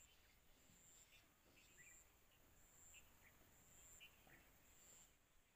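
Near silence: faint field ambience with an insect buzzing in short high pulses about once a second and scattered brief bird chirps.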